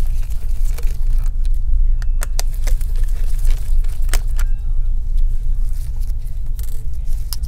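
Scattered light clicks and taps of gloved hands and a small screwdriver handling laptop parts, over a steady low rumble.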